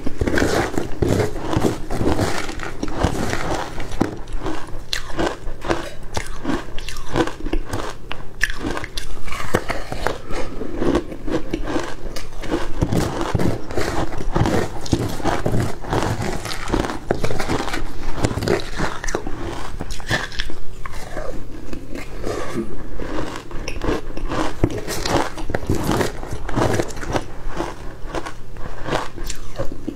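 Ice cubes coated in matcha powder being bitten and crunched in the mouth, close on a lapel microphone: dense, continuous crunching and chewing.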